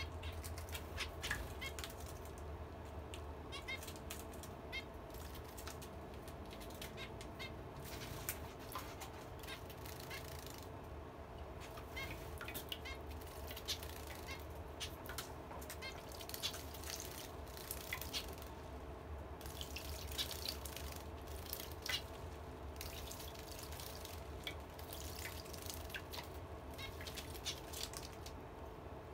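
Zebra finches bathing in a shallow birdbath: repeated short bursts of splashing water and fluttering wings, with runs of short chirping calls now and then. A steady low hum runs underneath.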